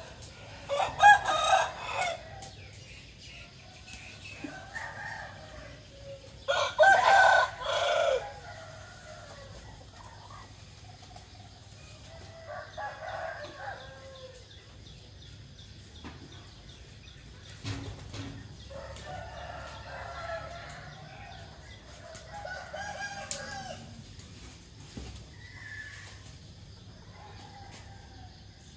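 Roosters crowing: two loud crows, about a second in and again about six seconds in, then several fainter crows through the rest.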